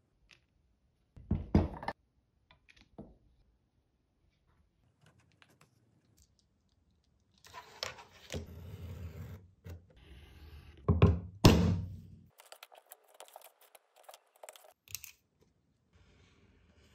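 Leatherworking bench sounds: leather pieces and hand tools handled and set down on a cutting mat, giving short thunks and knocks. There is rubbing in between, the two loudest knocks come about two-thirds of the way through, and a quick run of light clicks follows.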